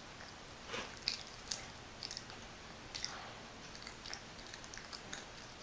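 A child chewing a mouthful of food: faint, irregular small clicks and crunches.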